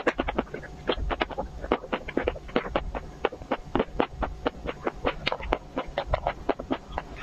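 Close-miked chewing of a chocolate-coated ice cream bar: a quick, uneven run of small crunching clicks, several a second, as the chocolate shell breaks between the teeth.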